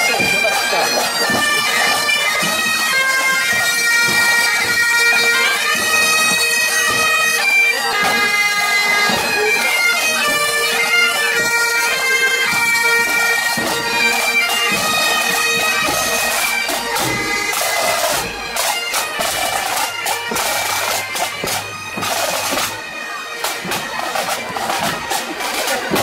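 A pipe band of Highland bagpipes playing a marching tune in unison over their steady drone. The pipes fade out about two-thirds of the way through.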